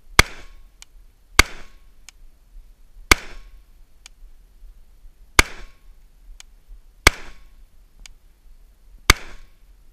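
Rifle fired six times at an unhurried pace, one and a half to two and a half seconds apart, each shot a sharp crack with a short echoing tail: deliberate aimed fire at long-range targets. A faint sharp tick follows most shots within a second.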